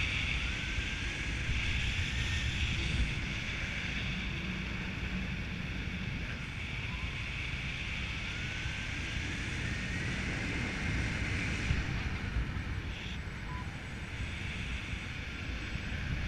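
Wind rushing over the camera microphone of a paraglider in flight: a steady, rumbling hiss with no engine.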